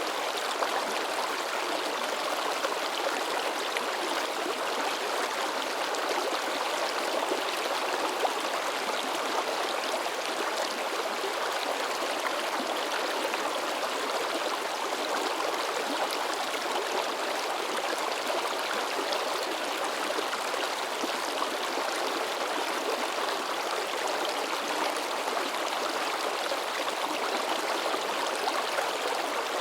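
Shallow river babbling and splashing over rocks, a steady rush of water with lively splashing.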